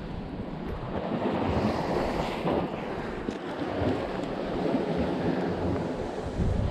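Sea waves washing steadily against a rocky shore, with wind buffeting the microphone in low rumbling gusts.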